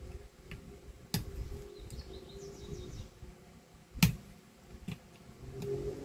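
Sharp clicks of small metal parts on a vacuum cleaner motor's carbon-brush holder being handled, with two loud clicks about three seconds apart and a few fainter ticks.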